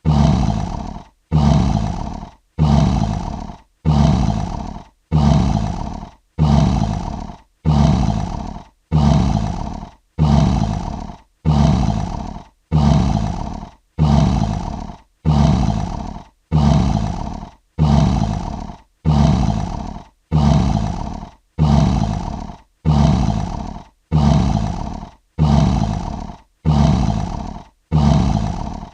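A lion's roar played as a looped sound effect: the same short roar, loudest at its start and fading away, repeated about every 1.3 seconds with a brief silence between each.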